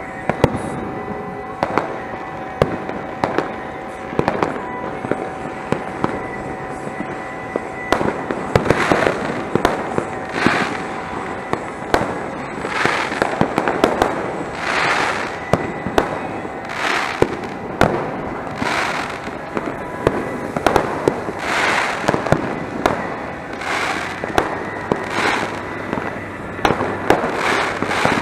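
New Year's Eve fireworks and firecrackers going off all around, with many sharp bangs and cracks throughout. From about eight seconds in, short noisy bursts come every second or two over the bangs.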